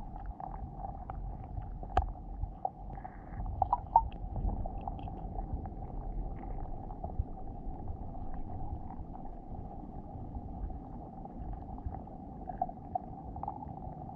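Underwater sound picked up by a GoPro inside its sealed waterproof housing on a sandy lake bed: a steady muffled rumble with a steady hum, and scattered sharp clicks and taps, the sharpest about two and four seconds in.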